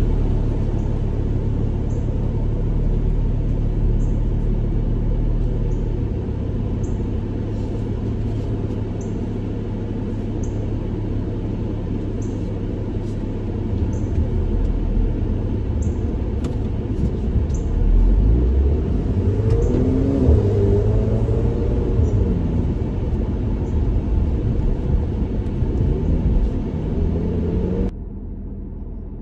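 Mercedes-AMG C43's twin-turbo V6 engine and exhaust heard from inside the cabin while driving: a low, steady rumble, with the revs rising and falling about twenty seconds in. Near the end it drops suddenly to a quieter drone.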